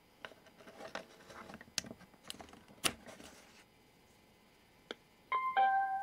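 Clicks and scrapes of a 3.5 mm audio jack and a USB plug being pushed into a BT-163 Bluetooth receiver dongle, then a sharp pop. Near the end, the receiver's Beken BK3254 chip sounds its ready status signal: two short electronic beeps, the second lower in pitch.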